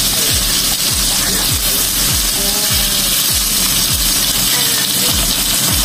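Chicken pieces frying in oil in a wok, a steady sizzle, under background music with a bass beat about twice a second.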